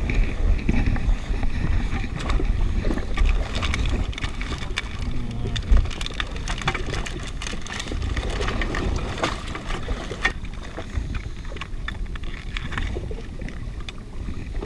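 Rustling and clicking of plastic soft-bait packets and a plastic tackle box being handled in a jet ski's storage bin: many short clicks and crinkles over a steady low rumble of wind on the microphone and water against the hull.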